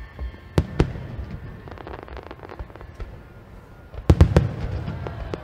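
Aerial fireworks shells bursting: two sharp bangs in the first second, a spell of fine crackling, then a quick cluster of louder booms about four seconds in, trailing off into more crackle.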